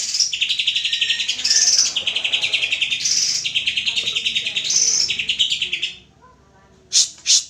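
Green leafbird (cucak ijo) singing a fast, chattering trill of rapid repeated notes mixed with higher whistled phrases. The song breaks off about six seconds in and is followed by a few sharp calls near the end. This is a lure song used to get other leafbirds to sing.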